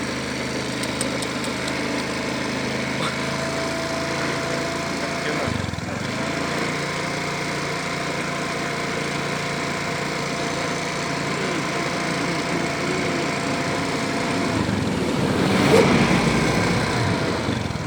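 A small engine running steadily at a constant pitch, briefly dipping about five and a half seconds in and getting louder around sixteen seconds.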